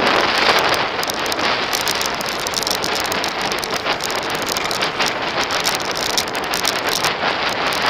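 Wind buffeting the camera microphone on a downhill mountain-bike descent, mixed with the tyres rolling over a rough dirt trail and the bike rattling with many small knocks.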